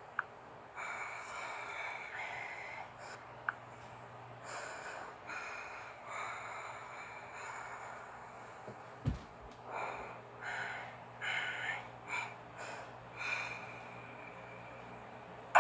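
Faint, irregular breathy puffs of a person breathing close to the microphone, with a couple of small clicks and one low thump about nine seconds in.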